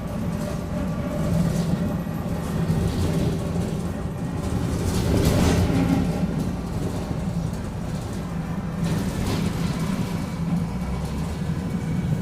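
Mercedes-Benz OF-1722M bus under way, its drivetrain making a steady drone with the differential growling. It gets louder for a moment about five seconds in.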